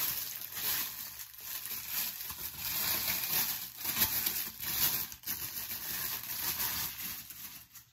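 Clear plastic bag crinkling and rustling as it is handled and opened to pull out a satin bonnet, in irregular bursts that die away near the end.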